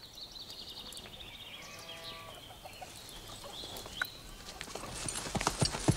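Chickens clucking and cackling, then horse hooves clattering in the last couple of seconds.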